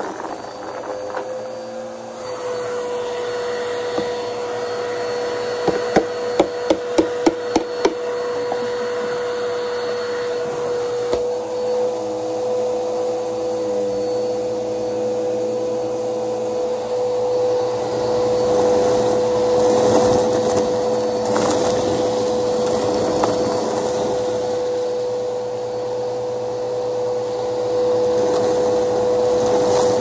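Upright vacuum cleaner running with a steady whine. About six seconds in comes a quick run of sharp clicks lasting a couple of seconds, and past the halfway mark a louder crackling that lasts several seconds.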